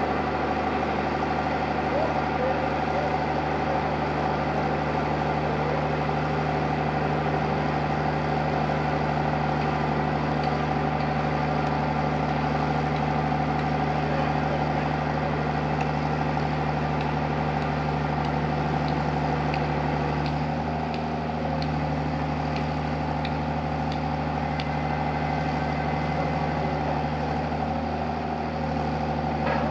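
Engine of a mobile boat hoist running with a steady hum while it lowers a yacht into the water in its slings.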